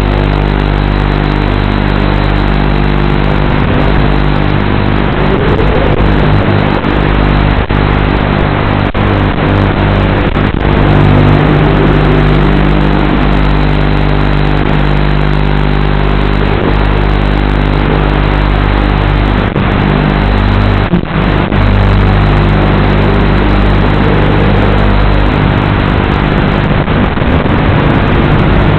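FPV racing quadcopter in flight, heard through its recorded onboard feed: a loud, steady buzzing hum over hiss, with a few brief whines that rise and fall.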